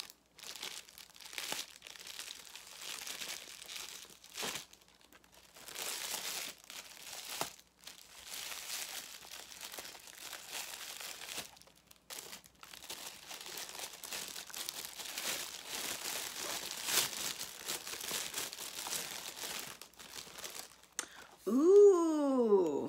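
Shiny metallic gift wrap crinkling in uneven bursts with short pauses as a present is unwrapped by hand. Near the end a woman's voice makes a short, loud vocal sound.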